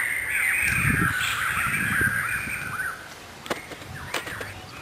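A group of birds calling loudly, many short arching calls overlapping for about three seconds before dropping away. Near the end come two sharp clicks.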